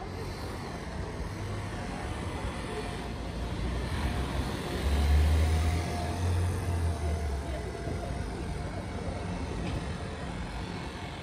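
City street traffic: a motor vehicle passes close, its low engine rumble swelling to the loudest point about five seconds in and fading by about seven and a half seconds, over steady background traffic noise.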